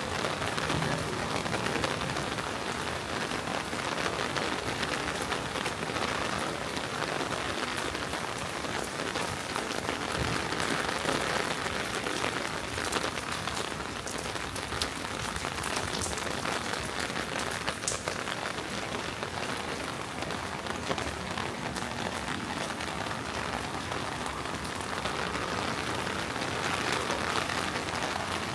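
Steady rain, an even hiss with scattered sharper drips.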